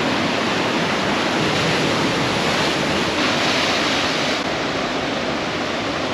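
Steady rush of Pacific surf breaking against the rock formations and washing into the lagoon, swelling a little about halfway through.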